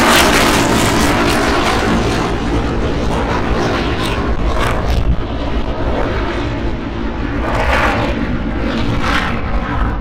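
Blue Angels F/A-18 fighter jets flying by, their jet engines making a loud, continuous roar with a deep rumble. It is loudest near the start and eases slightly.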